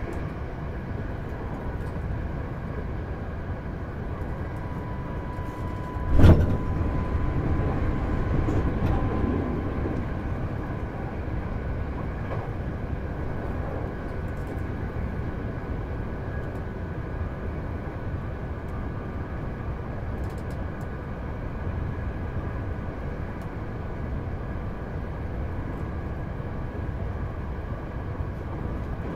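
Hankyu 8000 series electric train with Toshiba IGBT inverter drive running at speed, heard from inside the car: a steady rumble of wheels on rail with a faint steady motor hum. About six seconds in a sudden loud bang, then a few seconds of louder rushing before the running noise settles back.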